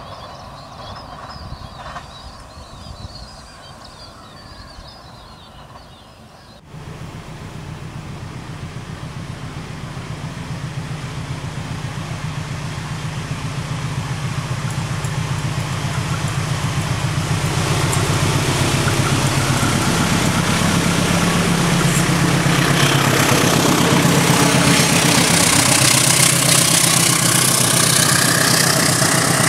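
Faint chirping at first. From about seven seconds in, the steady drone of an Indonesian diesel locomotive's engine hauling a passenger train, growing louder as it approaches, with wheel and rail noise rising as it passes close by near the end.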